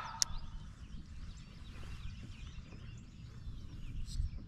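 Many small birds chirping over a steady low rumble, with one sharp click about a quarter second in.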